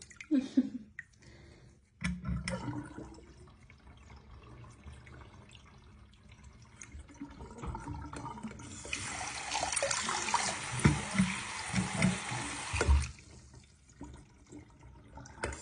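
Tap water running into a sink, splashing much louder for about four seconds past the middle before easing off, with a few dull knocks.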